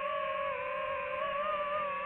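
FPV drone's motors and propellers giving a steady whine, the pitch wavering slightly as the throttle shifts.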